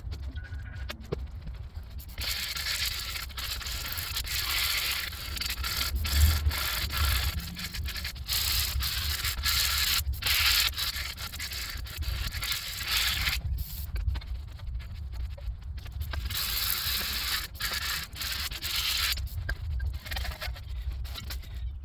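Harsh scraping and rubbing of a tool on brake parts, in two long stretches broken by many abrupt cuts, over a steady low rumble.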